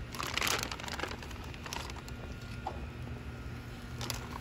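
Plastic bag crinkling as it is handled while shrimp are taken out of it, in a burst in the first second and again near the end.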